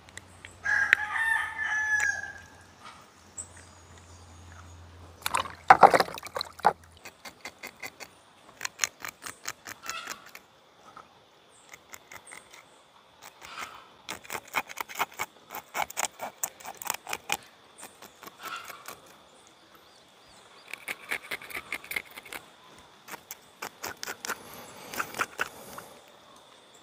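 A rooster crows once, a call of about two seconds starting about a second in. A loud knock follows a few seconds later, then runs of quick short clicking or scraping strokes, several a second.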